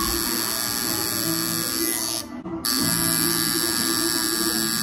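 Electric tattoo machine buzzing steadily as its needle works ink into the skin; it cuts out for about half a second a little after two seconds in, then starts buzzing again.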